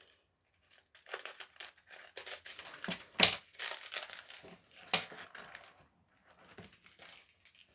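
Plastic crinkling and rustling as a diamond painting kit is handled: the clear cover film over the canvas and a small plastic bag of drills. The crackling is irregular, with two sharper snaps about three and five seconds in.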